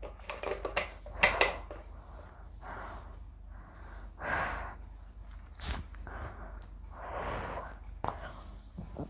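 A woman breathing out heavily after chugging a litre of juice: about four separate exhales, a second or two apart, with a few short clicks between them.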